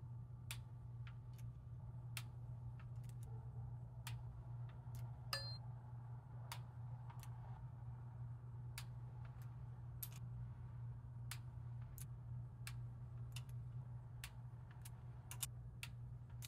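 Small ratcheting torque wrench clicking as it tightens the water pump bolts to 8 Nm. The clicks come singly and irregularly, about one or two a second, with one sharper, ringing metallic click about five seconds in, over a steady low hum.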